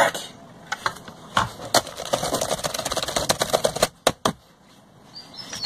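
Rapid run of small plastic clicks and rattles from hands working a USB cable plug at a camera drone's port, ending in two sharp clicks. A few short, high rising chirps near the end.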